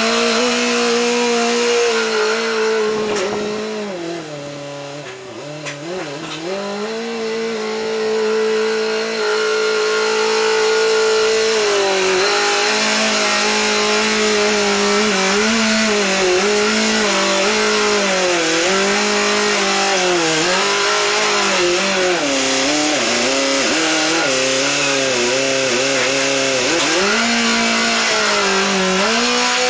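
Telehandler's diesel engine running, its speed rising and falling again and again as the hay grapple is worked. It drops quieter for a few seconds about four seconds in, then stays loud.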